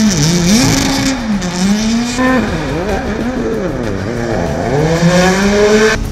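Hyundai i20 WRC rally car's turbocharged four-cylinder engine at racing speed, its revs rising and falling in quick repeated swings as the car is driven hard through the corners.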